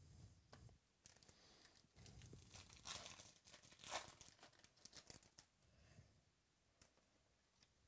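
Foil wrapper of a baseball trading-card pack being torn open and crinkled, loudest about three to four seconds in. Light clicks of cards being handled come before and after it.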